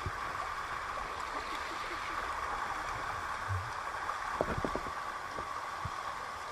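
Shallow river water rushing steadily over stones, with a few faint knocks about four and a half seconds in.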